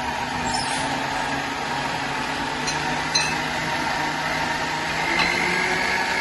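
Countertop jug blender's motor running steadily, blending a milkshake of blueberries, vanilla ice cream and milk. A higher whine joins the hum about five seconds in.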